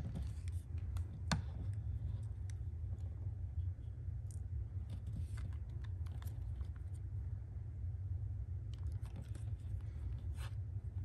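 Hard plastic robot-dog toy (Hasbro I-Dog) handled and turned in the hands: scattered light clicks and taps of plastic against fingers, over a steady low hum.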